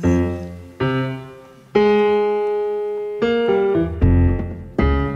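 Solo piano playing a slow run of chords, each struck and left to die away, several in a row, in an instrumental break between sung lines of a ballad.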